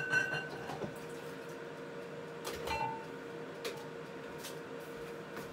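Light kitchen clatter: a few clinks and knocks of kitchenware, some ringing briefly, at the start and again about two and a half to three and a half seconds in, over a steady electrical hum.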